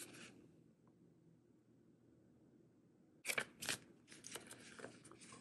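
Handling noises: a brief paper rustle from a booklet page at the start, then near quiet, then about three seconds in two sharp crinkly sounds followed by lighter rustling as hands handle an open leather zip wallet.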